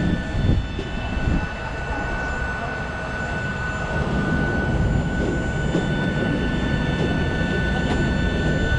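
Steady high whine over a low rumble from a Boeing 737 MAX's running auxiliary power unit in the tail.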